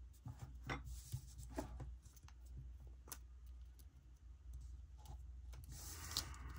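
Faint, scattered rustles and light clicks of a clear plastic sticker and paper planner pages being handled and pressed down by hand, over a steady low hum.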